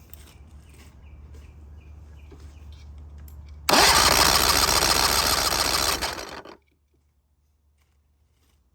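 Three-cylinder outboard motor cranked on its electric starter for about three seconds. It turns over evenly without firing, for a compression test of the bottom cylinder. It starts suddenly about four seconds in and winds down and stops near the end.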